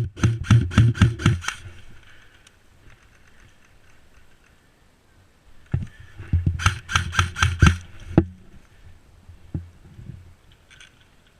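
Airsoft gun firing two quick strings of shots, about five or six a second: one string at the start and another about six and a half seconds in.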